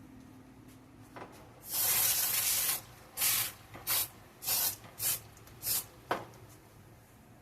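Spraying hiss: one long burst of about a second, then five short bursts in quick succession, and a small knock after them.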